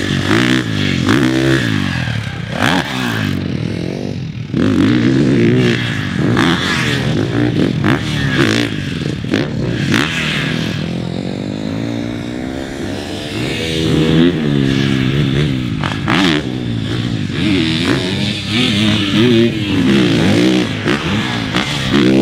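2022 KTM 450 SX-F Factory Edition motocross bike's single-cylinder four-stroke engine being ridden hard, its pitch rising and falling over and over as the rider opens and closes the throttle. A few sharp knocks cut through along the way.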